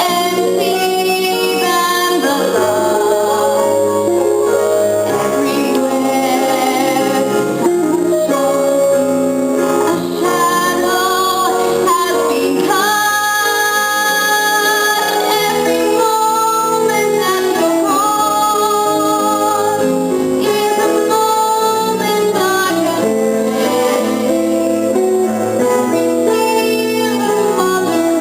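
Youth theatre cast singing a show tune over instrumental accompaniment, with female voices leading.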